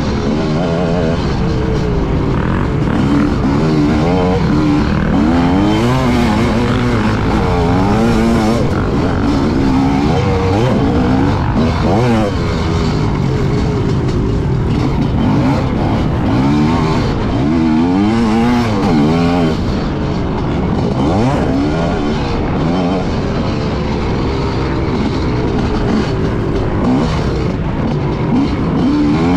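Dirt bike engine heard on board, revving up and falling back again and again as the bike is ridden hard around a sandy motocross track, with engine pitch rising through each gear and dropping off into turns.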